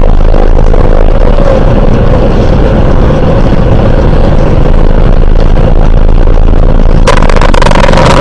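Steady, loud rumble of a car's engine and tyres, heard from inside the cabin while driving at speed. About seven seconds in, a sudden harsh hiss with a held high tone sets in over it.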